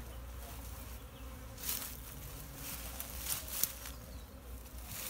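Honeybees buzzing around an open hive. A few short rustles and clicks of the hive boxes and frames being handled stand out near the middle.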